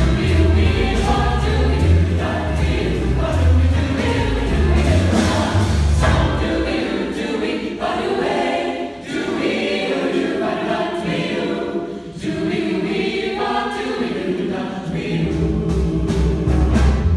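High school choir singing in harmony into handheld microphones. A deep bass line sounds beneath the voices for the first six seconds or so, drops out, and comes back near the end.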